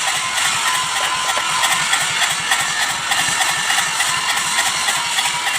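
Kubota Z751 two-cylinder diesel engine running steadily with a rapid, even beat.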